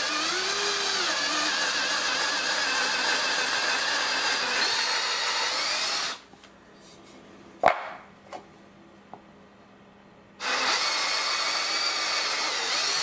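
Craftsman power drill boring a hole through a wooden 2x4, its motor running steadily with a whine for about six seconds. It stops, there is a single sharp knock, then the drill runs again for the last two and a half seconds.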